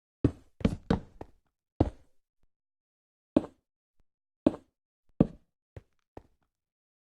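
Irregular hard knocks and taps, about ten sharp single impacts spread unevenly over seven seconds, with silence between them.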